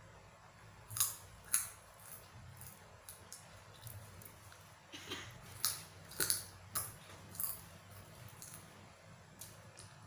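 Hands being rubbed and pressed together, with a string of short, sharp, irregular clicks, the two loudest about a second in and half a second apart.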